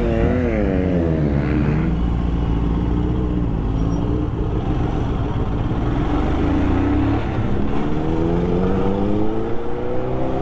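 Motorcycle engine under way: its pitch drops off over the first couple of seconds, holds steady, then climbs again as it accelerates in the last few seconds, over a low wind rumble on the microphone.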